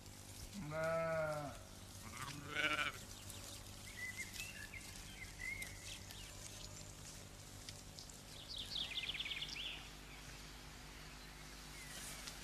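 A sheep bleating twice in the first few seconds: one longer, wavering bleat, then a shorter one.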